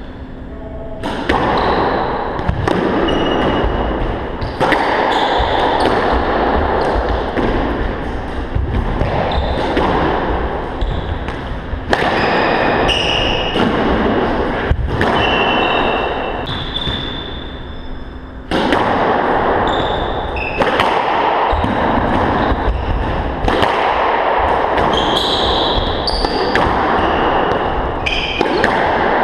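Squash rally: the ball smacks off rackets and the walls again and again, while court shoes squeak and patter on the wooden floor. There is a short lull a little past the middle before play picks up again.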